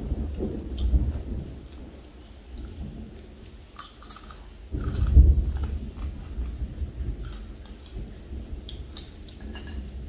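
People chewing and sucking on pickled crab and shrimp, with scattered sharp crunching clicks. Under them, low thunder rumbles, swelling about a second in and again, loudest, around five seconds in.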